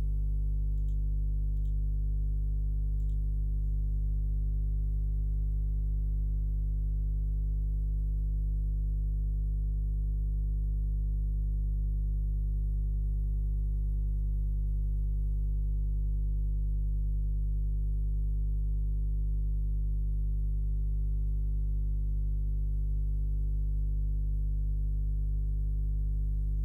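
Steady low electronic buzz from a video-editing program's audio stuck repeating while the software hangs, a sign of the program freezing. It holds one unchanging pitch with its overtones and stops abruptly.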